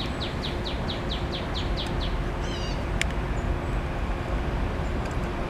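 A songbird calling a rapid series of short, falling chirps, about five a second, that stops about two seconds in, followed by a brief trill. A steady low rumble runs underneath.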